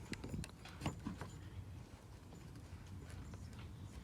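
Light clicks and taps of hand tools against plastic: a few in the first second or so, then fainter scattered ticks.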